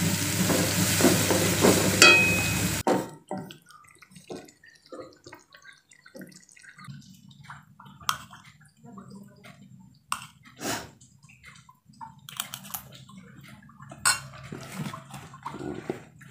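A loud, steady hiss that cuts off abruptly about three seconds in, then soft crinkling of plastic packaging and light taps as wrapped groceries are handled and set down.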